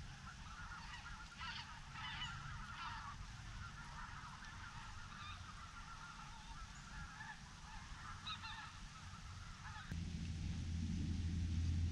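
A flock of geese calling, many honks overlapping in a continuous chatter. About ten seconds in, the calling gives way abruptly to a low steady hum, louder than the geese.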